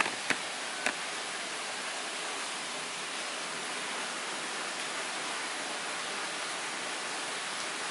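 Three sharp knocks in the first second, the first the loudest: the roof popping as it expands in the hot sun, over a steady hiss.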